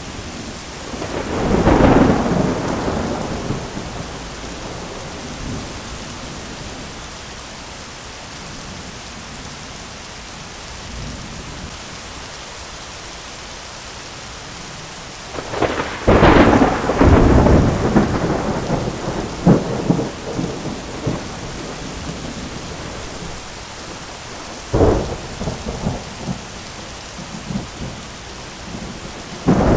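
Thunderstorm: steady heavy rain with thunder. A rumble comes about two seconds in, a long, loud crackling peal runs from about halfway for several seconds, a sharp crack follows near the three-quarter mark, and another clap breaks right at the end.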